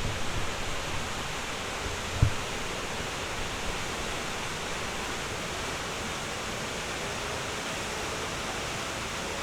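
Steady, even rush of Minnehaha Falls pouring, with one short low thump on the microphone about two seconds in.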